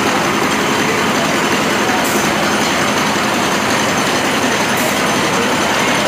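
Automatic sachet-packing machinery for tobacco pouches running: a steady, loud mechanical din.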